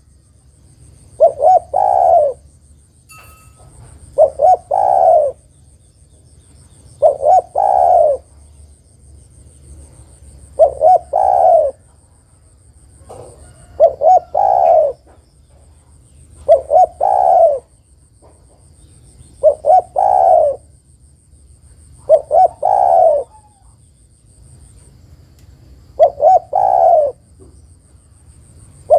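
Spotted dove (tekukur) cooing, given as a female's call to draw males into calling. Nine phrases come about every three seconds, each a couple of short notes and then a longer rolling coo, with a longer pause near the end.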